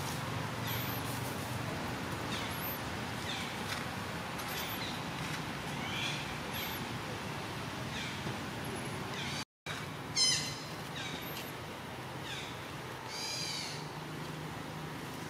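Short high calls, each falling in pitch, repeat about once a second over a steady forest hum. Near the end a baby macaque gives a longer squealing cry.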